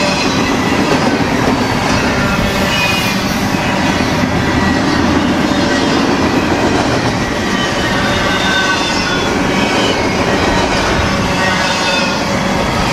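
Double-stack intermodal freight cars rolling past: a steady rumble and clatter of steel wheels on the rails, with short, thin high squeals from the wheels now and then.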